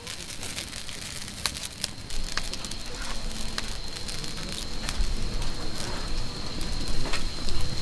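Wood fire crackling with sharp pops, while oil sizzles on a cast-iron griddle set over the flames.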